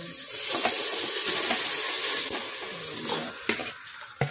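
Soy-marinated chicken and its marinade hitting hot oil in an aluminium pot: a sudden loud sizzle about a third of a second in that slowly dies down over the next few seconds. A few light knocks of the basin against the pot near the end.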